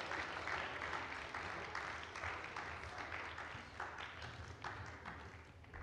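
Audience applauding, the clapping slowly thinning out and fading toward the end.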